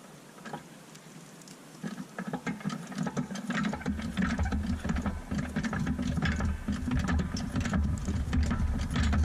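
A small motorised tool running steadily with a rapid rattling clatter. It starts about two seconds in and grows heavier a second or so later.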